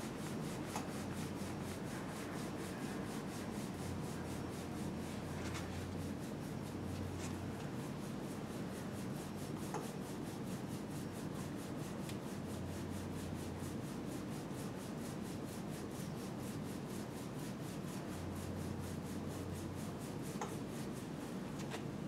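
Steady rubbing of skin against skin from a sawing massage stroke, the little-finger edges of the forearms (ulnar borders) working back and forth across a client's back.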